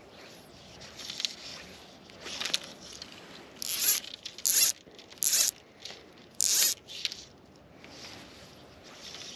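Fly line being stripped in by hand through the rod guides: a run of short zipping pulls, faint at first, then four loud ones about a second apart in the middle, then faint again.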